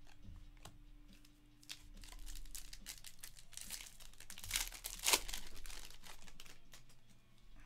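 Foil wrapper of a trading-card pack crinkling and tearing as it is ripped open by hand. The crackling is loudest about four to five seconds in.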